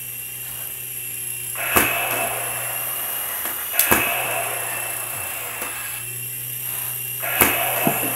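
Air Hogs toy RC helicopters' small electric rotors whirring, the whir swelling louder about a second and a half in and again near the end as a helicopter flies closer. About five sharp clicks or taps sound through it.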